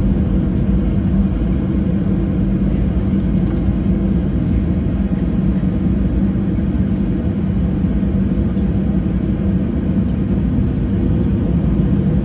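Cabin sound of a Boeing 737-700 taxiing, its CFM56-7B engines at idle: a steady low rumble with a constant hum, with no change in engine power.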